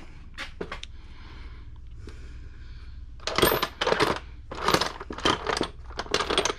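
Small metal tools or parts clinking and clattering against each other: a couple of light clicks, then from about halfway a run of loud rattling bursts, like rummaging through metal pieces.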